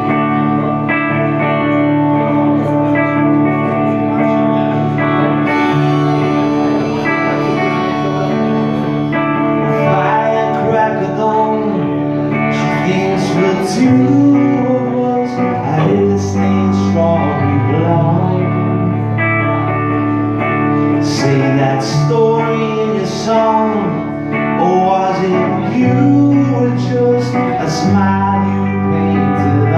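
Live band of electric guitars playing a song together, with a man singing lead into a microphone, his voice coming in partway through.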